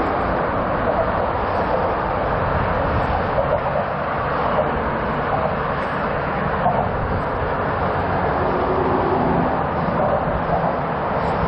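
Steady rushing noise of riding a bicycle at speed: wind over the camera microphone mixed with the continuous rumble of motorway traffic beyond the barrier.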